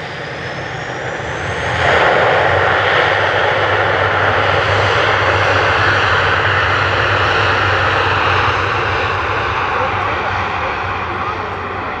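Fixed-wing aircraft passing low overhead on its landing approach. A thin rising whine comes first; about two seconds in the engine noise swells sharply, stays loud, then slowly fades toward the end.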